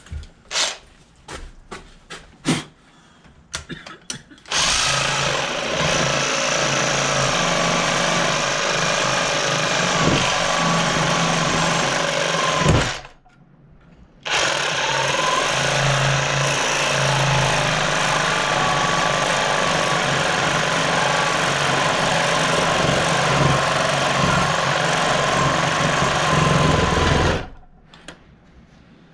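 Cordless reciprocating saw cutting a slot into a tractor pedal bush to free it from the pedal. It runs steadily in two long stretches with a short stop just before the middle, after a few knocks as the saw is set up.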